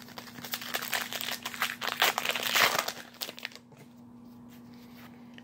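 A baseball card pack's wrapper crinkling for about three seconds as it is torn open, then stopping.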